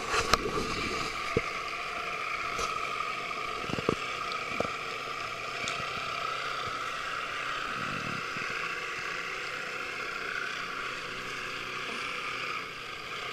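Small electric drive motor of a 1/20-scale radio-controlled Damen Stan tug model running steadily, an even whine with no change in speed. A few sharp clicks come near the start and about four seconds in.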